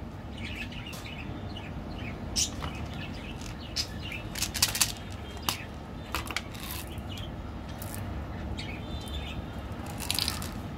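Sharp plastic clicks and taps from handling candy packaging: the plastic cap of a candy tube pulled off, then sugar-coated chocolate buttons rattling as they are tipped into a hand near the end.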